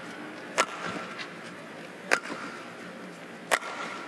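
Badminton rackets striking a shuttlecock three times in a rally, the shots about a second and a half apart, over a steady low background hiss.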